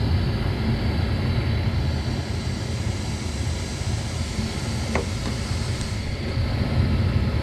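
Ducane gas furnace's draft inducer motor running with a steady low hum, at the start of the ignition sequence before the hot-surface igniter glows. A light click about five seconds in.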